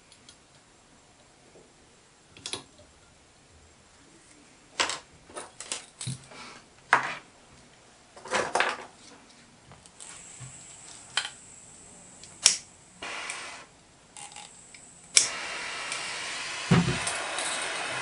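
Scattered clicks and taps of tools being handled at a workbench, then a sharp click about fifteen seconds in as a small hand-held gas torch lights, followed by the steady rush of its flame, heating a brass frame to solder on bronze bushes. One dull knock sounds near the end.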